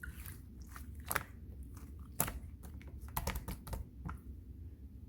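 Clear slime being worked by hand, giving irregular sticky clicks and small pops, with sharper pops about a second in and just after two seconds, and a quick run of clicks near the end.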